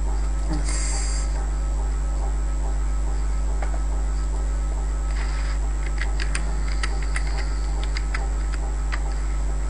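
Steady low electrical mains hum in the recording, with a scatter of short, light clicks in the second half.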